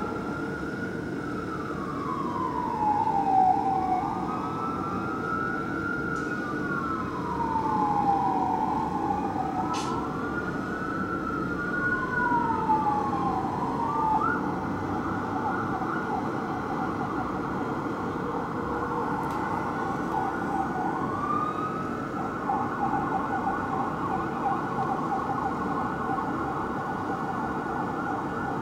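Fire engine's electronic siren sounding on an emergency run. It wails up and down in slow, partly overlapping sweeps, then switches about halfway through to a fast yelp, with one more rise into the yelp a little later. Engine and street rumble runs underneath.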